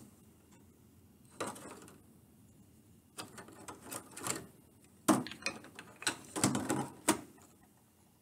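Small wooden pieces clicking and clattering as they are handled, in several short bursts of knocks and rustle.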